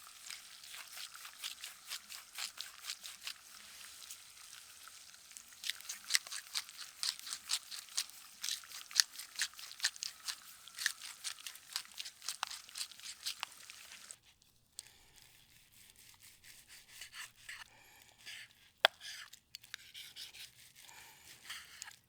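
Food frying in a pan: the oil-and-butter fat crackling and spitting in dense, irregular pops. These stop abruptly about two-thirds of the way through, leaving a few faint clicks.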